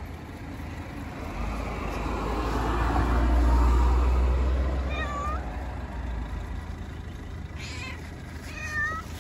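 Street cat meowing twice, short calls about five seconds in and near the end, begging for more food. Under it a passing vehicle's low rumble swells and fades, loudest around the middle.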